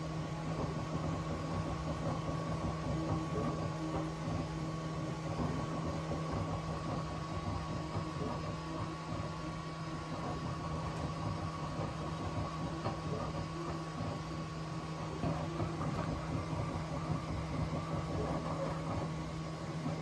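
Bambu Lab X1 Carbon 3D printer running a print while standing directly on a wooden desk: a steady hum with a low droning tone and a faint high whine, over a rumble that rises and falls as the print head moves.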